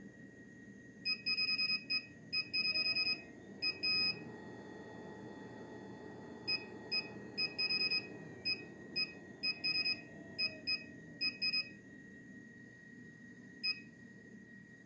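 Fitifito ST100 treadmill running with a constant high-pitched whistle and a low hum under it. The owner cannot say whether the whistle comes from the fan, the drive belt or the motor, and silicone lubrication has not cured it. Over this the treadmill's electronics beep in short runs: several in the first four seconds, a dozen or so between about six and twelve seconds, and one more near the end.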